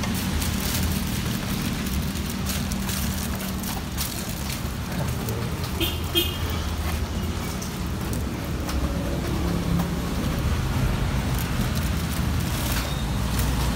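Steady road traffic going past, a continuous low rumble of cars and motorbikes, with a brief high toot about six seconds in. Close by, plastic bags crinkle now and then as they are handled.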